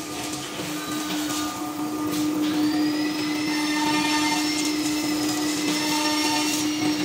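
Blue Elephant 2131 ATC CNC router's spindle spinning up to a high whine about two and a half seconds in, then cutting into the board on the table. A steady machine hum runs underneath.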